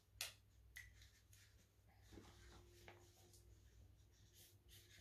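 Near silence with faint scratching strokes of a marker writing on an answer board, and a couple of soft clicks near the start.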